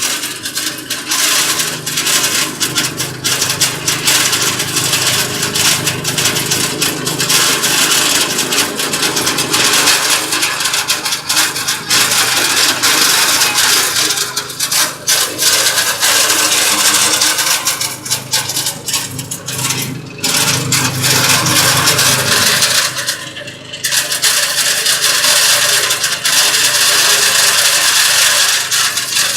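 Candlenut shell-cracking machine running, hard nuts clattering and their shells cracking inside it in a dense, continuous rattle over a steady motor hum. The clatter dips briefly twice in the latter half.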